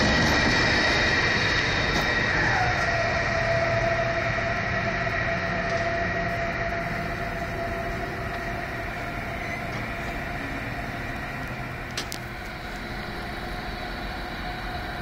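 Deutsche Bahn electric locomotive moving away, its electric whine dropping suddenly in pitch about two and a half seconds in and then holding a lower steady tone over a rumble that slowly fades. A single short click about twelve seconds in.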